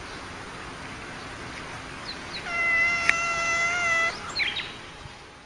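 A domestic cat's long, even-pitched yowl starting about halfway through and lasting about a second and a half, with a sharp click in its middle, followed by a few short higher cries, over a steady background hiss.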